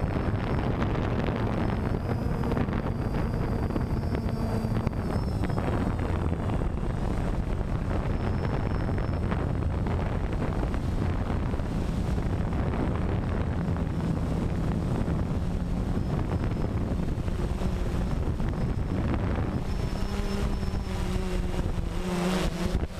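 DJI Phantom quadcopter's four electric motors and propellers buzzing in flight, heard from the GoPro mounted on the drone itself, mixed with rushing wind noise on the microphone. The motor tones shift in pitch now and then as the drone climbs and turns.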